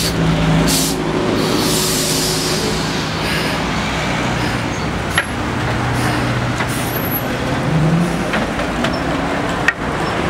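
Old Skoda trolleybus pulling away: its electric drive hums with tones that rise slowly in pitch as it speeds up, with a hiss of air a second or two in and two sharp clicks, one about halfway and one near the end.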